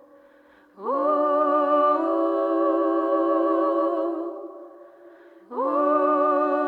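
Recorded music: long, sustained vocal notes in harmony with a light vibrato. A phrase swells in with an upward slide about a second in and fades away, and a second phrase begins the same way near the end.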